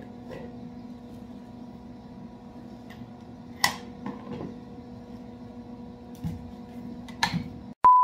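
A steady electrical hum in a workshop, with a few sharp metal clanks as angle iron welded onto a stuck Woodruff key is worked to pry it out of an engine crankshaft. Near the end the sound cuts out and a loud steady test-tone beep begins.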